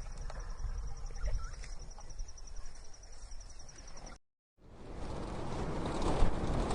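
Outdoor ambience with a steady, high insect trill over a low rumble. It cuts off about four seconds in, and after a brief silence a louder, even rushing noise like wind or rain takes over.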